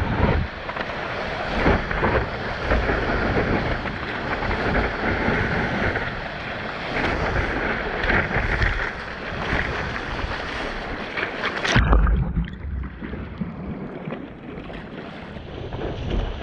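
Wind buffeting the microphone over rushing water and surf. About twelve seconds in there is a loud thump, then the sound turns muffled and quieter for a few seconds.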